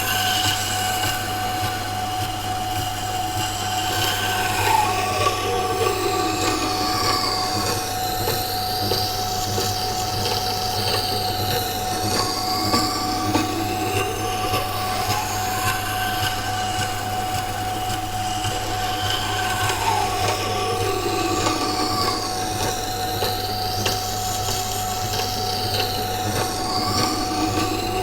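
Water grinder's motor humming while a carbon-steel knife blade grinds on its wet stone wheel, putting on the secondary bevel, with a steady squealing tone and whining tones that sweep up and down in slow repeating arcs.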